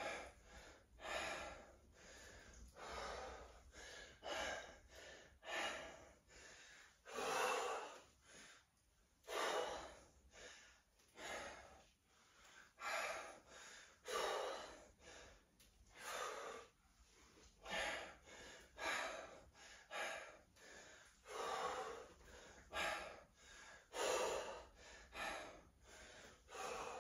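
A person breathing hard through a set of dumbbell clean and presses: short breaths out about once a second, the rhythm of the reps.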